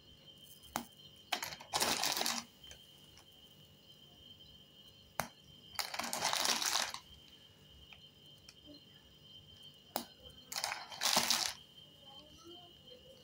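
Parle-G biscuits and their opened wrapper handled by hand: three short spells of crinkling and crunching, with a few single sharp clicks between, over a faint steady high whine.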